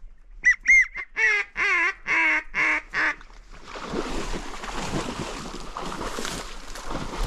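Goose honking: two short, high calls, then five louder honks in quick succession. After that, a few seconds of rustling.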